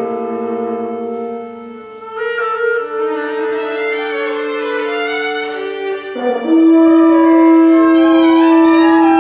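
Contemporary chamber music: winds and strings holding long, overlapping notes, with a louder sustained note entering about six seconds in.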